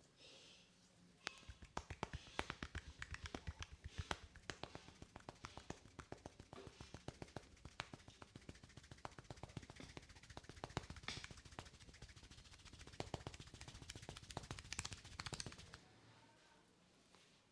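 Hands rapidly tapping and slapping on an oiled scalp in an Indian head massage: a fast, even drumming of about ten strikes a second that starts about a second in and stops shortly before the end.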